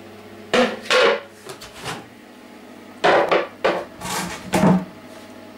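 Lids and containers being handled: the lids of plastic fermentation drums and a mesh sieve knock and scrape. There are a couple of sharp knocks about half a second to a second in, then a louder cluster of knocks and rattles about three to five seconds in.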